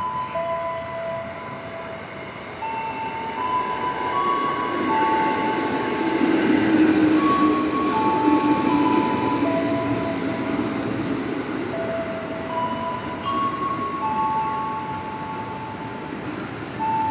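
Electric commuter train pulling into the station, its running noise swelling to a peak about seven to nine seconds in, with brief high wheel squeals. A slow chime-like melody of held notes plays through it.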